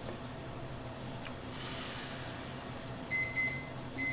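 Kitchen background with a short hiss near the middle, then a high-pitched electronic beeping that starts about three seconds in and repeats with short gaps, like a kitchen appliance or timer alarm.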